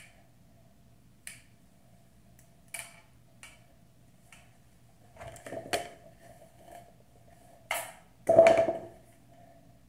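Hair straightener (flat iron) in use: sharp clicks as its plates snap shut on the hair, a second or so apart, then louder knocks and rustling as the iron and hair are handled, the loudest knock near the end.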